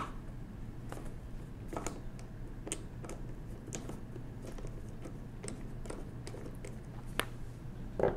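Scattered small metallic clicks and ticks, about one a second, as a hand screwdriver turns out a small bushing screw from the frame of a 1920s Monroe model K mechanical calculator and the loosened parts are handled. A low steady hum runs underneath.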